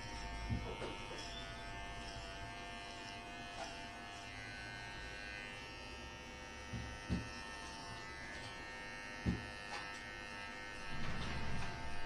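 Electric hair clipper buzzing steadily as it cuts hair, with a few short soft knocks, about half a second in and again around seven and nine seconds.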